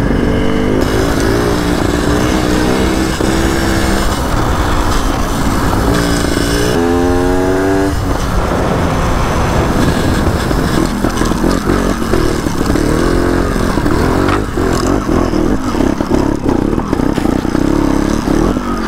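Two-stroke trials motorcycle being ridden, its engine revving up and down, with one clear rising rev about seven seconds in. In the second half the running turns rougher, with many short knocks and clatter as the bike goes over uneven ground.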